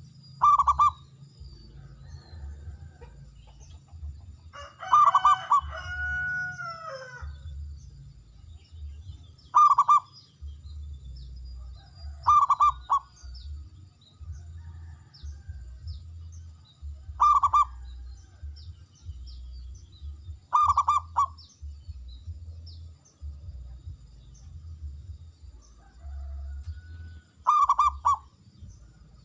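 Zebra dove cooing: about seven short bursts of quick staccato coos spaced several seconds apart, the one about five seconds in longer and ending in falling notes.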